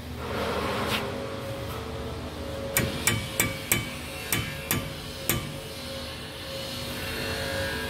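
Hammer blows on the steel brake hub assembly of a bus front wheel: about seven sharp, ringing metal strikes, a couple a second, starting about three seconds in.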